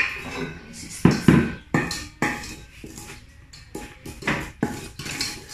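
A spatula scraping and knocking around the inside of a stainless steel mixing bowl as cake batter is stirred by hand. The strokes are irregular, about a dozen, some with a short metallic ring.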